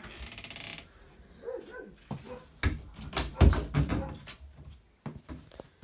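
Sliding closet door rattling along its track, then several knocks and short high squeaks as it is moved.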